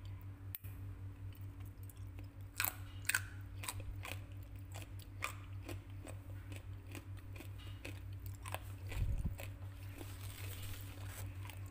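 Someone chewing a mouthful of crispy fried anchovies and peanuts, a run of sharp crunches that is loudest a few seconds in and goes on more softly after that. The crunch shows how crisp the fried anchovies and peanuts are. A single low thump comes about nine seconds in.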